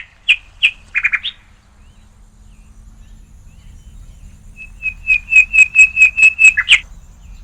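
A bird calling: a few sharp chirps in the first second and a half, then a quick run of about ten repeated high notes near the end, finishing with a falling note.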